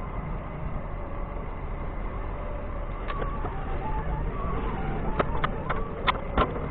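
Doosan 4.5-ton forklift engine running steadily as the forklift maneuvers. A quick run of sharp knocks comes over the last second and a half, the loudest two near the end.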